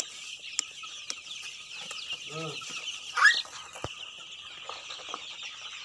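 A large flock of young white broiler chicks peeping continuously in a dense, high chorus, with one louder chirp about three seconds in.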